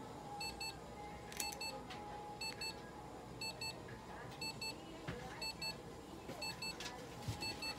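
An electronic device beeping in pairs of short high tones, repeating about once a second, while nail clippers snip a cat's claws with a few sharp clicks.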